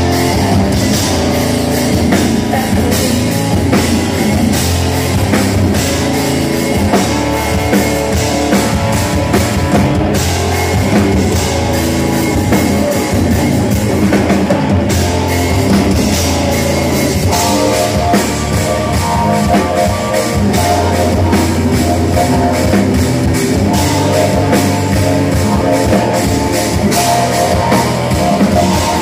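Progressive metal band playing live and loud: drum kit, electric guitars and bass together in a steady instrumental passage.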